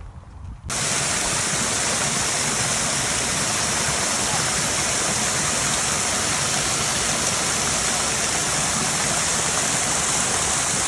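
Small waterfall spilling down a rock face into a shallow pool: a steady rush of falling water that starts abruptly about a second in.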